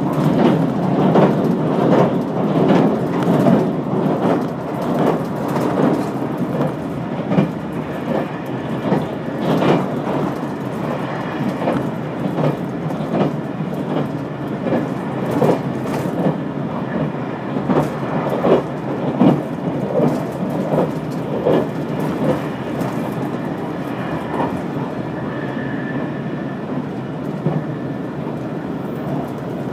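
Limited express train running on the Yosan Line, heard from inside the passenger car: a steady low rumble with frequent irregular knocks from the wheels on the track. The knocks thin out near the end.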